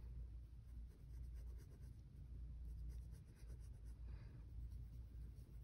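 Faint scratching of a dull wooden graphite pencil on sketchbook paper, in short, irregular drawing strokes.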